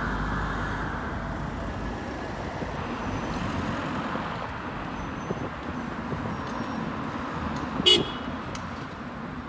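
Steady road traffic on a busy city street, with one short toot of a vehicle horn about eight seconds in.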